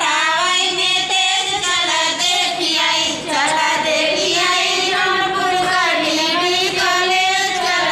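Women's high voices singing a song without a break, with long, wavering held notes.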